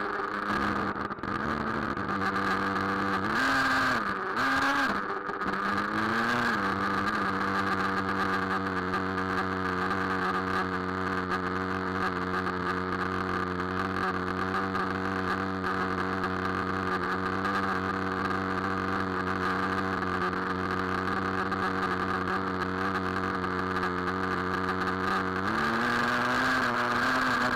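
Traxxas Nitro Rustler's small two-stroke nitro engine idling. There are a few short throttle blips in the first several seconds, then a steady idle, and the engine speed rises slightly near the end.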